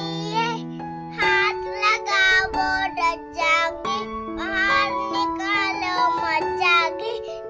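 Background music of held notes changing step by step, with a high voice singing over it.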